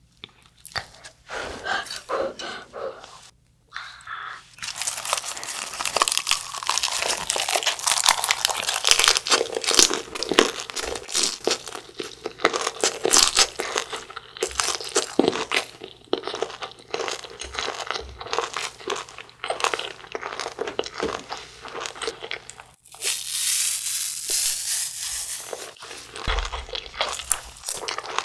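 Close-miked chewing of a lettuce wrap of fermented skate, boiled pork and kimchi (hongeo samhap), with steady crunching bites. It starts a few seconds in, stops briefly near the end, then resumes.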